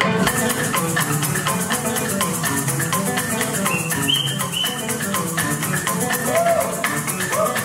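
Music: maracas shaken in a fast, even rhythm over plucked string instruments.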